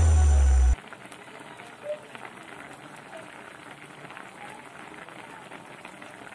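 Coconut milk stew of banana blossom and fish bubbling at a simmer in an uncovered wok: a faint, steady crackle of small bubbles bursting. Background music ends abruptly under a second in.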